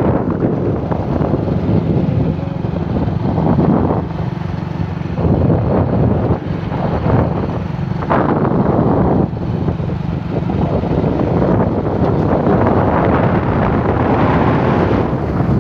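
Wind rushing over a phone's microphone on a moving motorcycle, with the bike's engine running underneath; the rush swells and eases in gusts.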